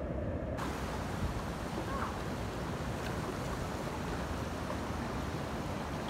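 Steady rush of whitewater tumbling over the rock ledges of a low waterfall on the Snake River.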